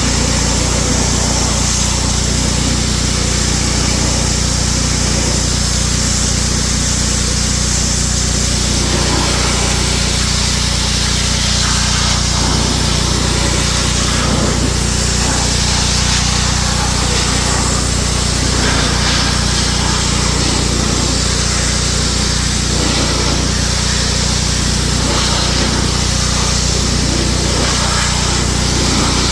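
A power tool running continuously at a steady, unchanging speed, with a constant high hiss over a low motor hum.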